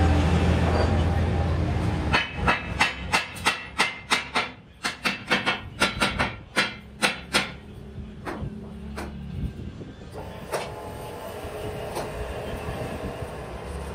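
Hammer blows on a steel truck wheel rim held on a lathe: a fast run of sharp, ringing metal strikes, about three a second, that thins out to a few scattered blows. Near the end the lathe runs with a steady hum as the rim spins.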